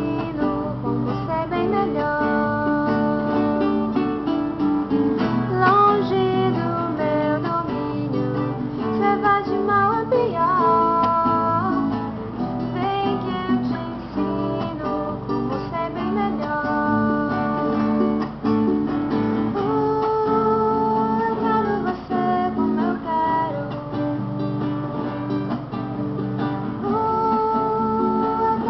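Acoustic guitar music, strummed and plucked, with a melody of long held notes over it.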